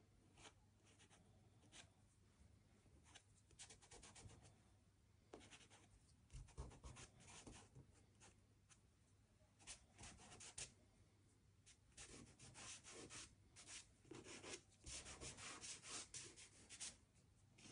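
Soft pastel drawn and smudged with a fingertip on pastel paper: faint dry scratching and rubbing in runs of quick strokes, busiest in the second half.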